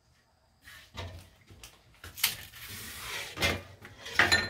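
Skin being peeled by hand off ryukyu (hasuimo, taro-like stalks): about four sharp tearing strokes roughly a second apart, the last with a brief squeak.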